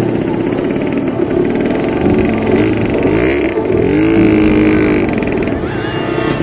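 ATV engine running under way, its revs rising and falling.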